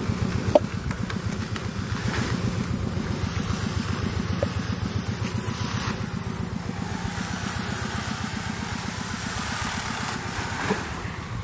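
An engine running steadily, a low, evenly pulsing rumble, with a brief sharp click about half a second in.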